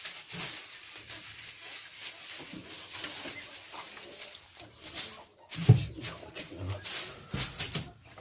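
Dry straw rustling and crackling as it is scattered and spread by hand over a floor, with a dull thump about two-thirds of the way through.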